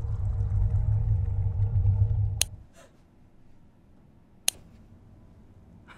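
Low rumbling drone of horror-film sound design swells, then cuts off suddenly with a sharp click about two and a half seconds in. A second sharp click comes about two seconds later.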